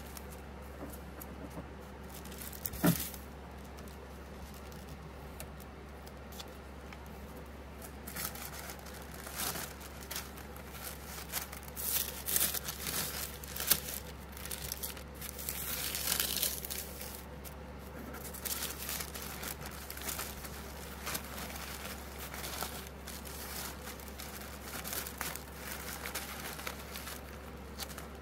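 Tissue paper rustling and crinkling in irregular handfuls as it is folded and smoothed around a felt plush toy, loudest in the middle stretch. One sharp knock about three seconds in.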